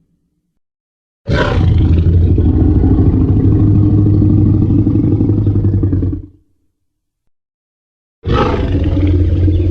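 Tyrannosaurus rex roar sound effect, heard twice. A deep roar about five seconds long opens with a higher-pitched shriek, then after a two-second pause a second roar of the same kind begins.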